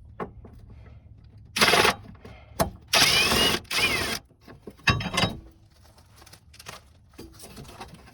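Impact wrench with a swivel-head socket running in four short bursts, the motor whine rising and falling, as it spins out the 10 mm fender bracket bolts.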